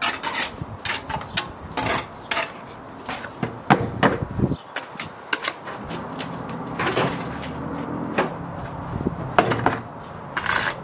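Steel bricklaying trowel scraping and tapping mortar into brick joints, in many sharp clicks and knocks, with a brick set into the course about halfway through. A soft brush sweeps the fresh joints near the end, over a steady low hum that starts about six seconds in.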